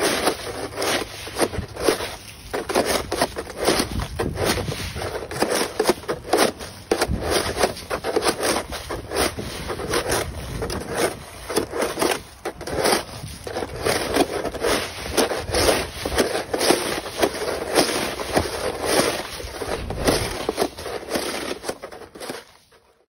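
A snow brush scraping and crunching through ice pellets and crusted ice on pavement, in quick irregular strokes. The sound fades out near the end.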